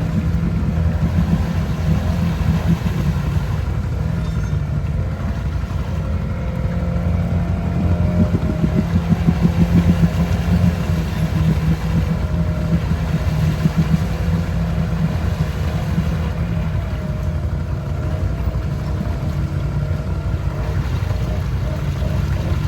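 ATV engine running under load in a mud hole, the throttle worked on and off, and loudest about eight to ten seconds in.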